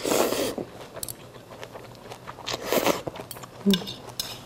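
A person slurping jjamppong noodles from a bowl in two loud slurps about two and a half seconds apart, with chewing and a few small clicks between and a sharp knock near the end.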